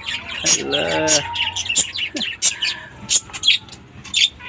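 Pet lovebirds chirping: a rapid string of short, sharp, high-pitched calls, several a second.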